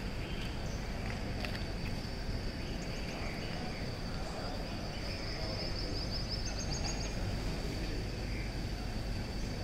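Steady outdoor background noise with a constant high-pitched insect buzz. A bird gives a short rapid trill about halfway through.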